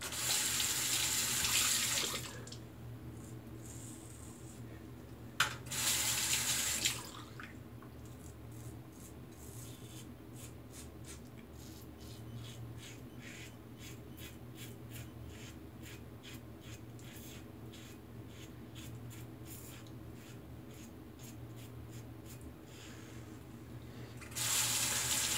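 A bathroom tap runs into the sink in three short bursts, at the start, about six seconds in and near the end, as a safety razor is rinsed. In between come many short, quiet scraping strokes of the Rockwell 6C safety razor's new Rockwell blade cutting through lather and stubble.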